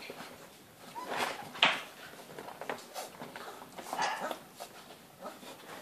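Great Dane puppies whimpering in a few short squeaks while they nurse, the sharpest about one and a half seconds in.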